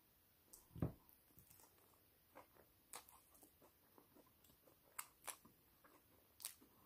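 Faint crunching of a crisp cracker being bitten and chewed, in scattered soft crunches with a low thump just under a second in.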